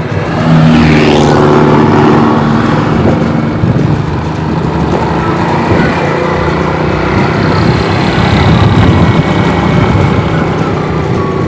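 Motorcycle engine running as it rides along the road, with wind rushing over the microphone. The engine climbs in pitch in the first second or so as it speeds up, then runs fairly steadily.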